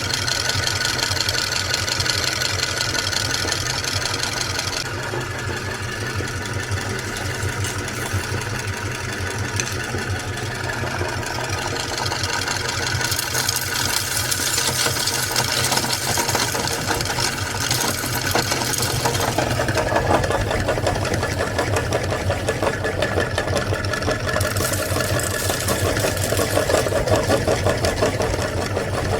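Electric meat grinder running steadily with a motor hum, crunching and crackling as it grinds candy, with the texture changing a few times as the load shifts.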